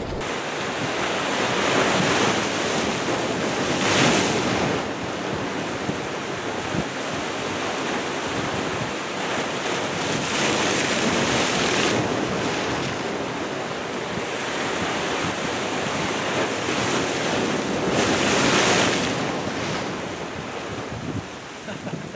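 Ocean surf breaking against the boulders of a rock jetty, a steady wash that swells louder every few seconds as waves come in.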